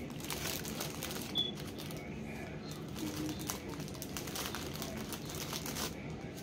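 Clear plastic bag of small diamond-painting drill packets crinkling and rustling as it is handled, with many small crackles throughout.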